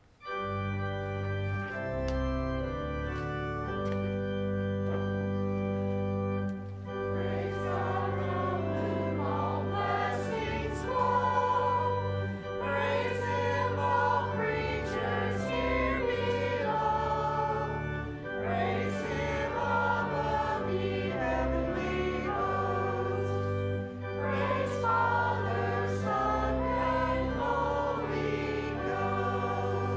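Organ playing sustained chords as an introduction, then a choir singing with organ accompaniment from about seven seconds in.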